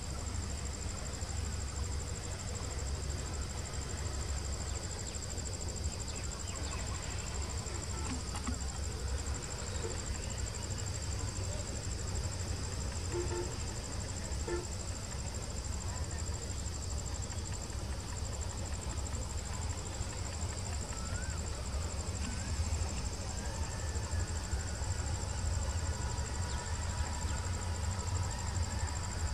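Steady high chirring of crickets and other insects, with a low steady rumble underneath that grows a little louder near the end.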